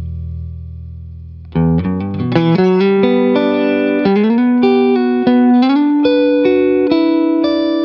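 Electric guitar played through a PC-2A photo-optical tube compressor pedal: a low chord rings out and fades, then about a second and a half in a quick run of picked notes starts and carries on as a melodic line with notes ringing over each other.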